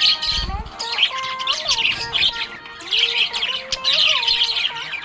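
Budgerigar (budgie) chirping and warbling in fast, continuous chatter.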